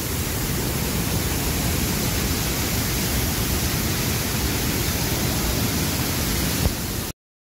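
Loud, steady rush of muddy landslide floodwater pouring down, with no break, cutting off suddenly about seven seconds in.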